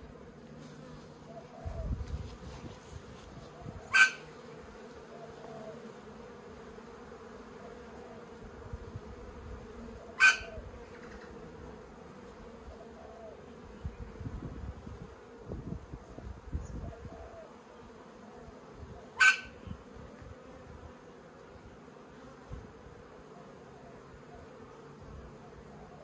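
Steady hum of honeybees at an open top bar hive, broken by three short, sharp sounds several seconds apart.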